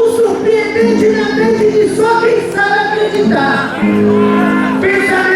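Quadrilha junina music with singing: a voice sings over long held notes, loud and continuous.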